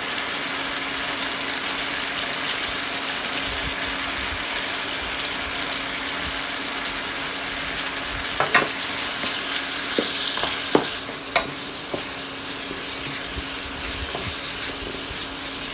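Onions, tomatoes and green capsicum sizzling in oil in a stainless-steel kadai, a steady hiss with a low hum underneath. From about eight seconds in, a spatula knocks against the pan several times as the vegetables are stirred.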